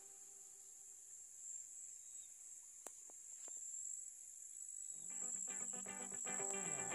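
Steady high-pitched chirring of insects in the field, with a few faint clicks near the middle. Background music comes in about five seconds in.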